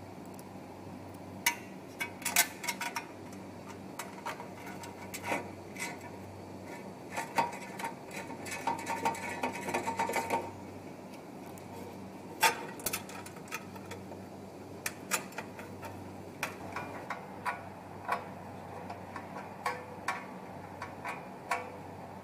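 Scattered clicks and light metal clinks of screws and a stainless-steel sheet-metal tray being handled as a bottle infeed tray is fitted to a conveyor, with a quick run of clicking about seven to ten seconds in. A steady low hum runs underneath.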